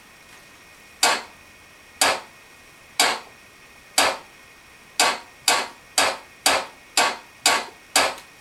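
Percussive count-in at the start of a song: sharp, dry clicks, one a second four times, then twice a second, speeding up toward the downbeat.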